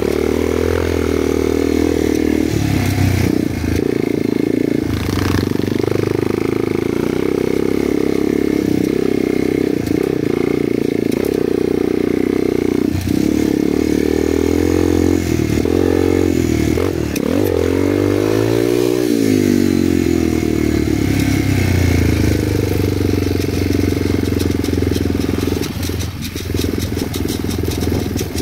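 Motorcycle engine running steadily under way, its pitch dipping and climbing again a little past halfway.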